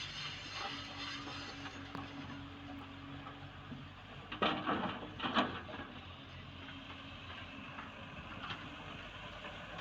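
JCB NXT 205 excavator's diesel engine running steadily at work, with two short loud noises from the working machine about four and a half and five and a half seconds in.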